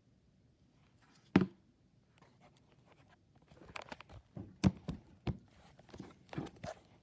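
Irregular handling noises: a sharp knock about a second and a half in, then a run of clicks, taps and soft thumps in the second half.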